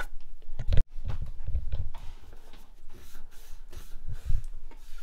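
Handling noise: low bumps and rustling, with a sharp knock about a second in.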